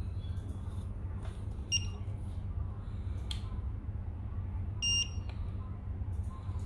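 Fimi A3 drone remote controller giving two short electronic beeps about three seconds apart, the second a little longer, with faint clicks of its buttons and handling between. A steady low hum runs underneath.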